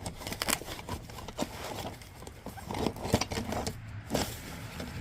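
Hand tools such as pliers and cutters being handled in a fabric tool roll: irregular light clicks and clinks with rustling.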